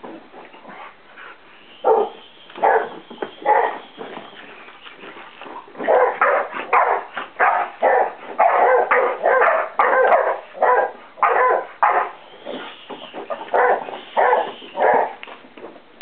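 A boxer dog barking in short bursts: a few at first, then rapid and nearly continuous through the middle, then several more near the end.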